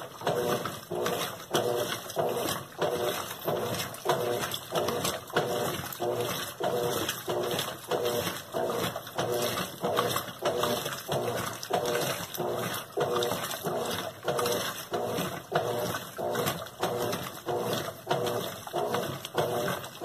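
Colormaq LCA11 top-load washing machine agitating: the motor and transmission hum and the water and clothes slosh with each agitator stroke, about one and a half strokes a second, and the sound cuts off at the very end as the machine goes into soak. The mechanism is noisy, which the owner puts down to a faulty transmission and bearing.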